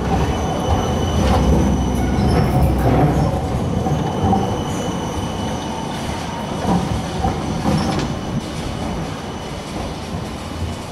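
Siemens Combino tram passing close by on a curve: a steady rumble of its wheels on the rails, a few clunks, and a thin, steady wheel squeal. The sound fades in the last few seconds as the tram moves away.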